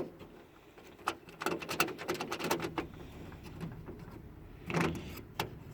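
Scattered clicks and knocks of hand work on a car bonnet latch, as small metal bolts and parts are handled and fitted. A busy run of them comes a second or two in, and one louder knock near the end.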